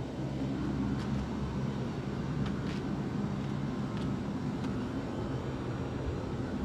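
Goodman central air-conditioner condensing units running: a steady low hum with an even rushing of fan air.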